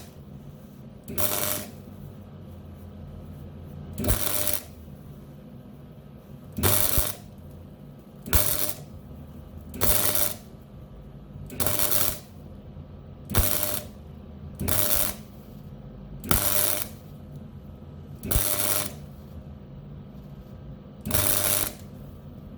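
MIG welder laying a plug weld on steel in short stop-start bursts: about eleven spells of crackling arc, each opening with a sharp snap as the arc strikes and lasting under a second, roughly every two seconds, over a steady low hum.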